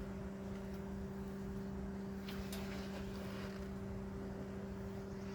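Mini excavator running steadily, a constant low hum with no change in pitch.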